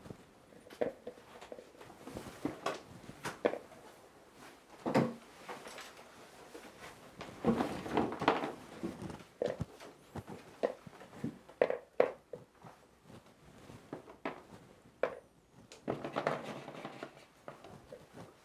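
Hard firework stars being laid one by one into the paper half-shell of a shakudama firework shell: irregular small clicks and light knocks as the pellets touch each other and the paper casing.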